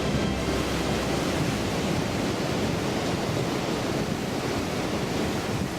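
Ocean surf washing in a steady rush of noise, with the last of a song's music dying away in about the first second.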